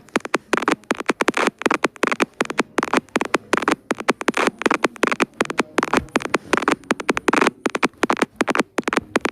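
Cartoon sneeze sound clips, chopped and retriggered in quick stutters several times a second and sequenced into a rhythmic remix.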